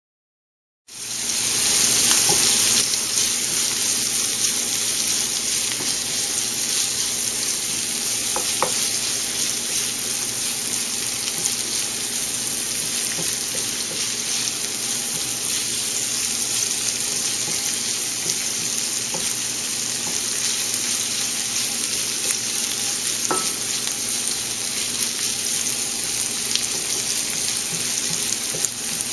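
Chopped green pepper and onion sizzling steadily in olive oil in a nonstick frying pan on medium heat, stirred with a spatula that clicks lightly against the pan a few times. The sizzling starts suddenly about a second in.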